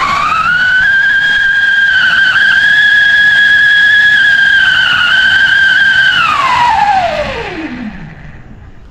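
Whistling sky-shot firework spraying a tall column of sparks, a loud whistle over a hiss. The whistle holds at one high pitch for about six seconds, then slides down in pitch and fades as the firework burns out near the end.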